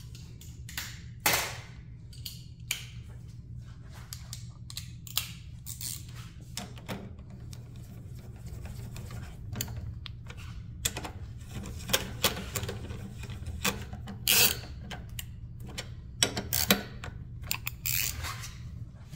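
Clicks and clinks of metal hand tools, with a socket ratchet clicking in short irregular runs as a bolt is run down into a motorcycle's fuel-tank mounting bracket.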